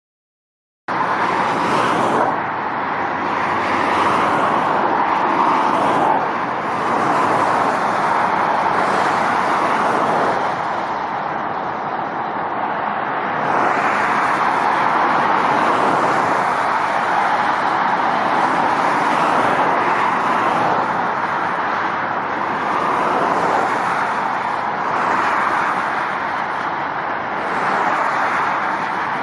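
Traffic on a multi-lane motorway: a steady roar of tyres and engines from cars driving past below, swelling and easing every few seconds as vehicles come and go. It starts suddenly about a second in.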